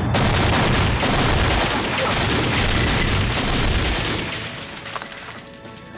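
Explosion in a hall: a loud, sustained roar with deep rumble and crackling, dying away from about four and a half seconds in.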